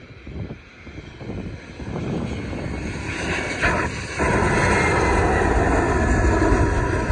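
easyJet Airbus A319 jet engines passing low overhead on landing approach, growing louder and staying loud through the second half, with a whine that slowly falls in pitch.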